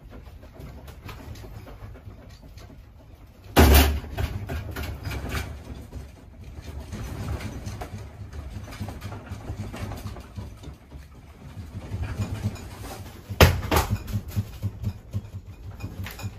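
A room rattling in strong earthquake shaking: a low rumble with many small knocks and clicks, and two loud bangs, one about three and a half seconds in and one near the end.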